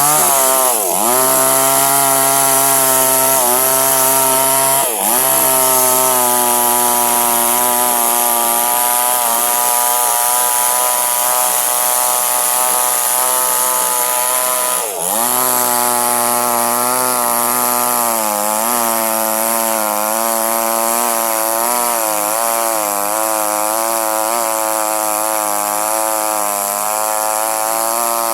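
Small two-stroke chainsaw running at full throttle while cutting durian wood. Its engine pitch sags briefly and recovers about a second in, again around five seconds and around fifteen seconds, and in the second half it wavers rhythmically as the chain bites into the wood.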